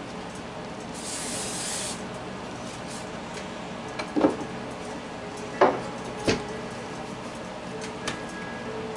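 A glass bowl of flour being handled on a kitchen counter: a short rustle about a second in, then a few sharp knocks and clinks from the glass.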